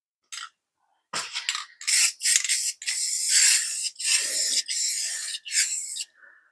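Aerosol spray-paint can hissing in a run of short and longer sprays with brief pauses between them.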